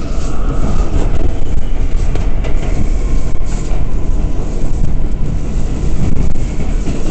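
Interior of an R179 subway car running at speed: a loud, steady rumble of wheels on the rails, with a faint high whine that fades out about a second in.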